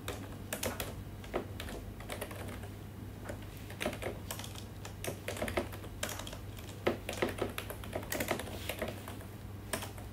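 Typing on a computer keyboard: irregular keystroke clicks, some in quick runs, with a faint steady low hum underneath.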